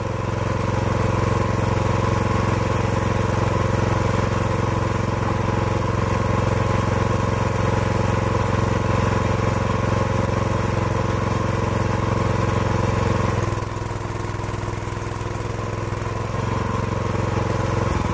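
Small gasoline engine driving the hydraulic pump of a dual-cylinder log splitter, running steadily. About two-thirds of the way through its note changes and it gets a little quieter, then it picks up again near the end.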